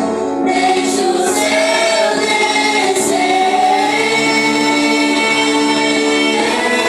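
A choir of voices singing a worship song, holding long sustained notes.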